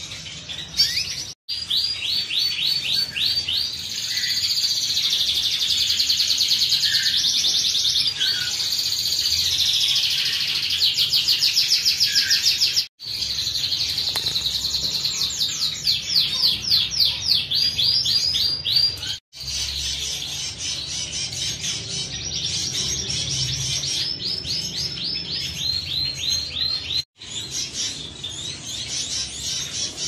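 Domestic canaries singing continuously, a long run of rapid rolling trills with rising and falling phrases. The song cuts out abruptly for an instant four times.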